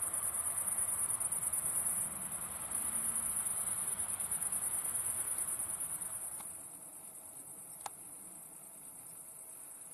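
Common grasshopper warbler (Feldschwirl) reeling: a long, even, high-pitched insect-like trill, dipping briefly about two seconds in and growing quieter after about six seconds. A single faint click comes near the end.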